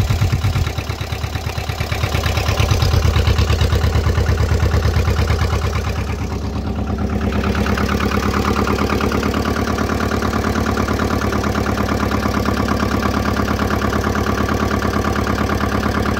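Lombardini LDA 672 air-cooled two-cylinder diesel in a Valpadana 330 tractor idling steadily with an even beat, running after a cold start in frost.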